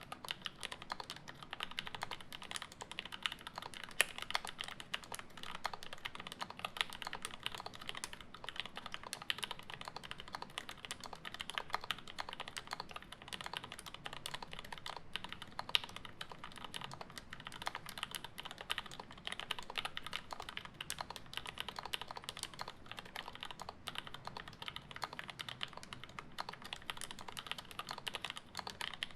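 Continuous fast typing on a custom acrylic Alice-layout mechanical keyboard with an acrylic plate, lubed switches with UHMWPE and Gateron Milky housings, and GMK keycaps. Many keystrokes a second run without a break.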